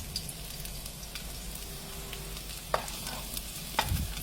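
Garlic sizzling and crackling in hot cooking oil in a pan as it is stirred, with a couple of sharp clicks near the end.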